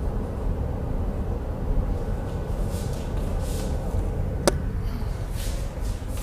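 Steady low drone of a ship's engine and machinery heard inside its accommodation, with faint steady hum tones. Over it, a phone is handled: brief rustles and one sharp click about four and a half seconds in.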